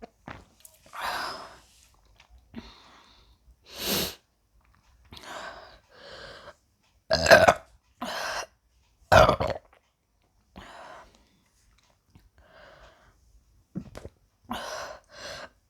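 A woman burping over and over, about a dozen separate burps of varying length with short pauses between them, the loudest two near the middle. The burps are gas brought up from a large amount of carbonated Sprite drunk quickly.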